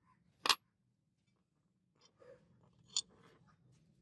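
Small brass knife-handle blocks being handled on a concrete floor: one sharp metallic clack about half a second in, then softer scraping and rustling with a second, smaller click about three seconds in as a block is set against the steel blade tang on a paper template.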